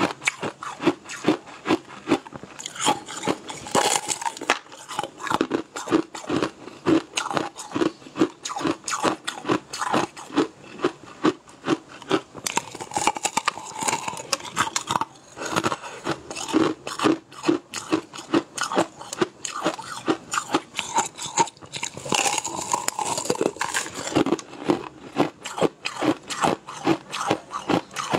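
Crunchy bites and chewing of a brittle, translucent candy-like sheet, close to the microphone: a steady run of sharp cracks and crackles, several a second.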